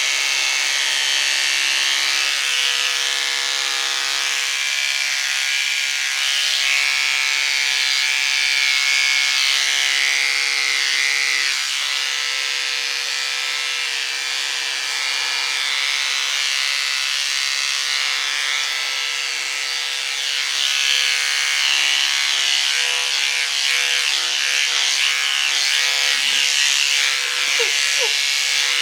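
Electric hair clippers buzzing steadily, the sound growing a little louder and softer as they work.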